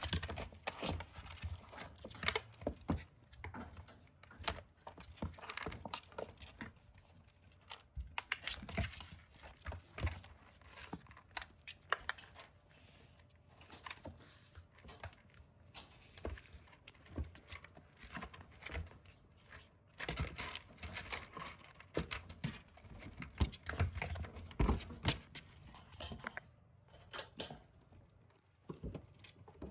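Kittens' paws and claws pattering and scrabbling on a cardboard-lined pen floor and wire mesh as they chase and wrestle: an irregular run of light taps and clicks, busiest in short flurries.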